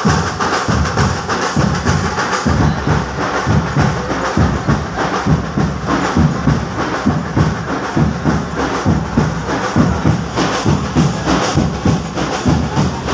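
Procession drums playing a fast, dense beat.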